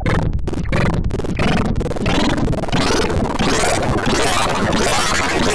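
Heavily distorted, edited audio: a short looped voice clip repeated in rapid pulses that blur together, about halfway through, into a continuous harsh wash of noise.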